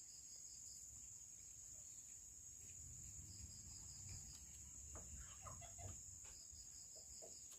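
Faint outdoor ambience: a steady high insect drone, with three trains of rapid high chirps, and a few faint short animal calls about five to six seconds in.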